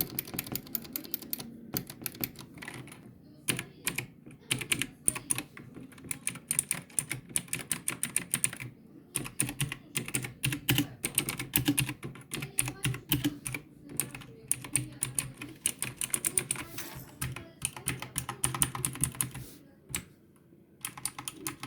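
Typing on a Defender Blitz GK-240L mechanical keyboard with blue switches: fast, irregular runs of sharp clicky keystrokes, with a brief pause near the end.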